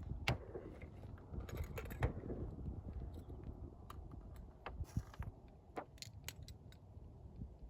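Scattered small clicks, rattles and knocks of muzzleloader loading gear being handled and rummaged for in a hurry.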